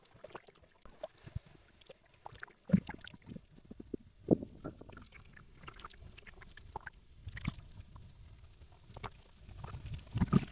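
Sea water sloshing and lapping close to the microphone, with irregular small splashes and knocks; two sharper splashes come about three and four seconds in, and a low rushing sound builds near the end.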